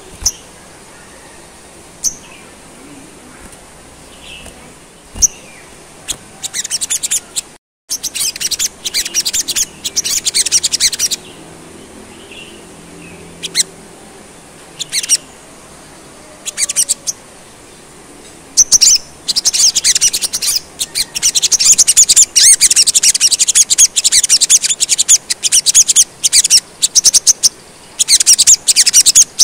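Male olive-backed sunbird (sogon) singing: a few single high chirps, then short bursts of rapid high twittering, building to a long, near-continuous fast chatter over the last third.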